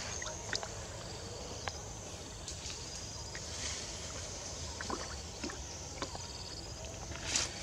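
Light splashing and sloshing of water as a baby macaque paddles around a tub, with a couple of louder splashes, one about midway and one near the end.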